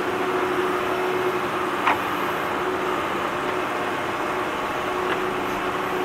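A vehicle engine running steadily, heard as a constant low hum over a rushing background noise, with a single click about two seconds in.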